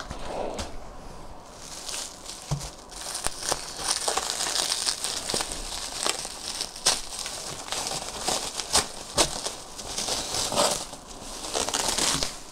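Packaging crinkling and rustling as a parcel is unpacked by hand, with many short clicks and crackles throughout.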